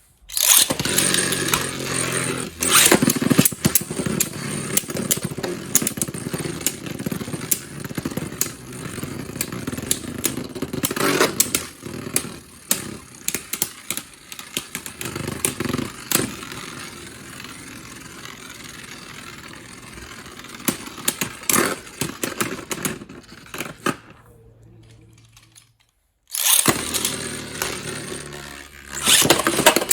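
Beyblade Burst spinning tops whirring in a plastic stadium, with frequent sharp clashes and knocks as they collide. The sound quietens to a low hum, cuts out briefly near the end, then starts again with loud clashing.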